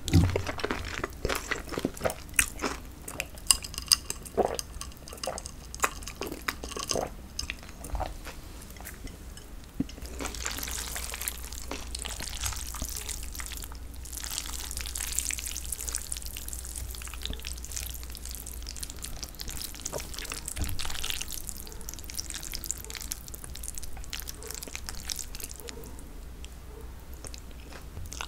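Mouth sounds of chewing, with wet lip smacks and clicks. About ten seconds in they give way to chopsticks stirring and lifting sauce-coated jjolmyeon (chewy spicy cold noodles) in a bowl, a steady wet squishing.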